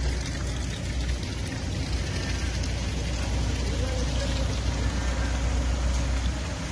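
Rain falling on standing floodwater: a steady hiss over a constant low rumble.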